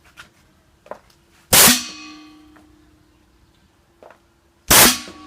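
Homemade pneumatic air cannon firing twice, about three seconds apart: each shot is a sudden, very loud blast of released compressed air that dies away quickly, with a faint click shortly before it. A faint steady hum runs underneath.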